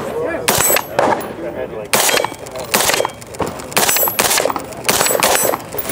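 A 10.5-inch 5.56 AR rifle firing through a short 3D-printed Inconel Silencer Central Banish Speed K suppressor: about eight single suppressed shots at an uneven pace. The speaker calls the shots super quiet, and the suppressor is rated under 140 decibels on this barrel length.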